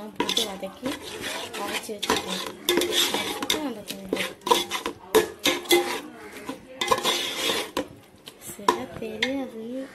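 Perforated metal spatula scraping and clinking against the inside of a metal pot while stirring a thick mint paste masala frying in oil, in many quick knocks and scrapes.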